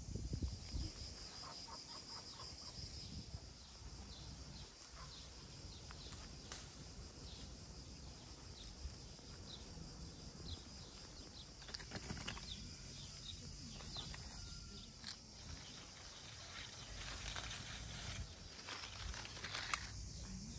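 Leaves and branches of a wild plum tree rustling as the fruit is picked by hand, with scattered light clicks and snaps, over outdoor ambience with small birds chirping.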